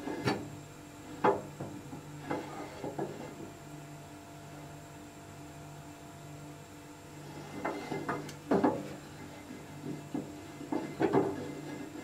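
Wooden stick knocking and rubbing against the metal pan support of a gas stove burner as it is turned in the flame: single sharp knocks in the first few seconds, then clusters of knocks about two thirds of the way in and near the end, over a steady low hum.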